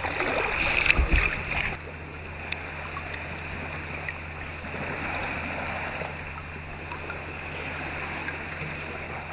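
Kayak paddle blades dipping and splashing in calm sea water, a few strokes in the first couple of seconds, then cutting to a steady, quieter hiss with a faint low hum.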